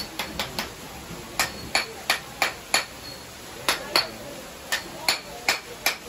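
Metal blade tapping a sealed clay pot to crack it open for serving: a string of sharp, ringing taps in quick groups of two to five, about fourteen in all.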